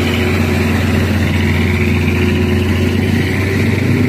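Truck diesel engines running at low revs, a light truck rolling slowly past close by. A steady, even engine hum.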